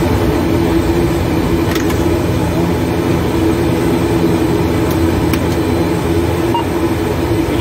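Pratt & Whitney PW127M turboprop engine noise of an ATR 72-600 heard inside the cockpit: a loud, steady drone with a constant hum. A few faint clicks stand out, about two seconds in and twice around five seconds.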